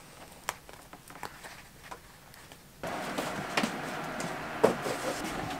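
Handling of fabric and a foam cushion: faint small clicks and rustles, then from about three seconds in a louder steady rustling hiss with knocks as the cushion and its cover are handled.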